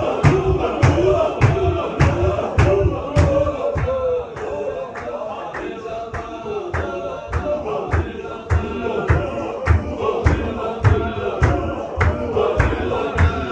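A group of men chanting a Chechen Sufi zikr together, over a steady beat about twice a second of sharp claps with low thuds of stamping feet on the floor. The chant drops quieter about four seconds in and builds again after about eight seconds.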